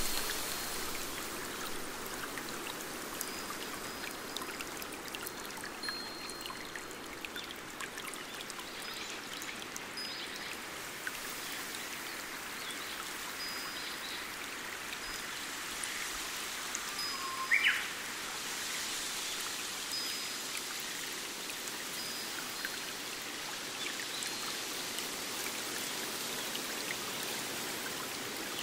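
A small forest stream trickling and splashing over rocks, with scattered drip-like ticks. A bird gives short, thin, high notes every few seconds, and a brief louder chirp comes about two-thirds of the way through.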